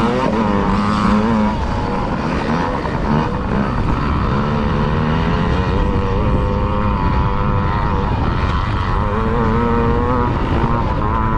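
Yamaha PW50 49cc two-stroke single-cylinder engine running under racing throttle. Its pitch wavers up and down continuously as the throttle is worked.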